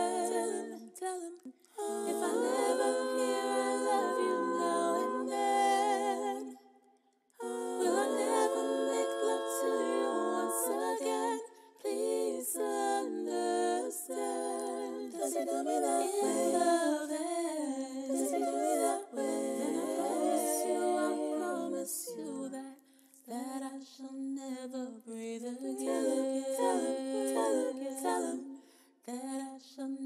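Wordless a cappella vocal harmonies: several layered female voices humming and holding chords, with a short break about seven seconds in.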